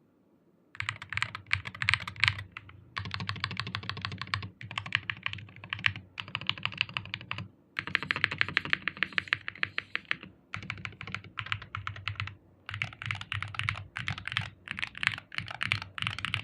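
Typing on an Akko x Veekos Shine60 HE 60% keyboard with Akko Flash magnetic Hall-effect switches on a tray-mounted aluminium plate. Fast runs of keystrokes come in bursts of a second or two with short pauses between, starting about a second in.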